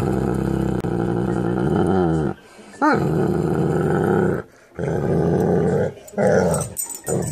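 Doberman growl-grumbling at close range in four or five long drawn-out bouts, a second or two each, with short breaks between; the bout about three seconds in opens with a sweep up and down in pitch.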